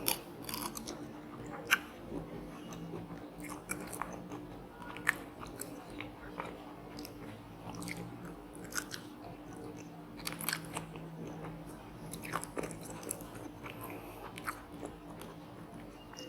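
A person chewing and biting into crunchy food, with sharp crunches scattered throughout; the loudest come a little under two seconds in and about five seconds in.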